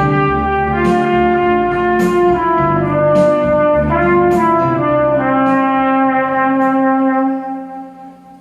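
Trumpet playing a melody of held notes over a backing track with a beat; about seven seconds in the backing stops and a last held note fades out, ending the song.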